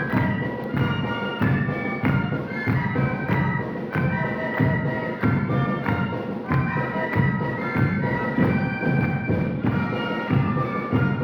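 Live music from an ensemble of Andean and Latin American instruments: reedy wind instruments carry the melody over a steady drum beat.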